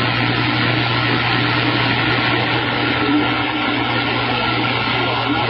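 CB radio receiver hissing with steady static between transmissions, over a constant low hum.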